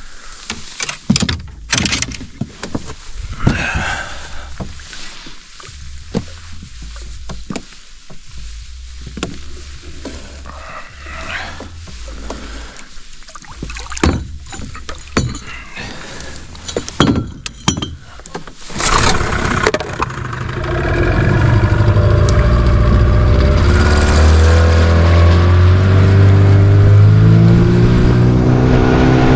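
Knocks and clicks of gear being handled in a small open boat. About twenty seconds in, an outboard motor starts and runs loud and steady, its pitch rising as the boat gets under way.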